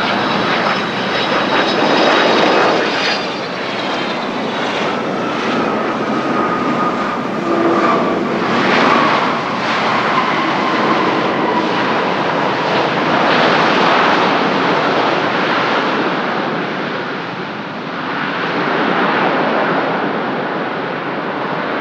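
Airbus A330-300's Pratt & Whitney PW4000 turbofans during touchdown and landing roll: a loud, steady jet roar with a faint whine that slowly falls in pitch over the first half.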